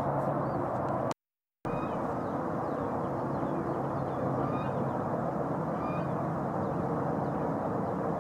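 Steady low outdoor rumble with a few faint, high bird chirps over it; the sound cuts out completely for about half a second about a second in.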